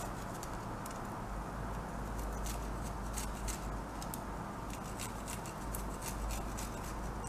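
Garlic clove being grated on a handheld stainless-steel grater: soft, scratchy rasping with light scattered ticks.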